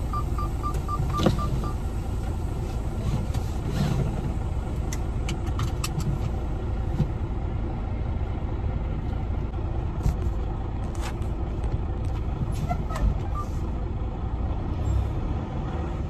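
Semi truck's diesel engine running with a steady low rumble, heard from inside the cab. A quick run of light ticks, about five a second, stops about two seconds in, and scattered short clicks follow.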